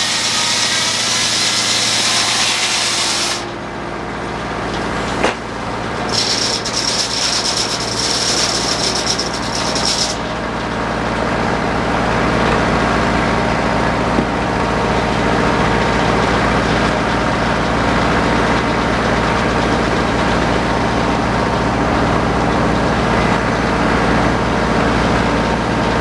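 Belt-driven circular sawmill running under steady engine power, the blade cutting wood in two stretches: the first few seconds, and again for about four seconds a few seconds later.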